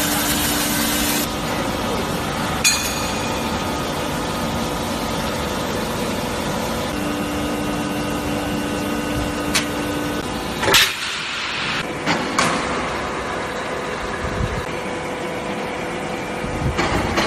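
Hydraulic copper-bar drawing machine running with a steady machine noise and a hum that comes and goes, with a few sharp clanks. About two-thirds of the way through, the sound changes to quieter factory noise with scattered knocks.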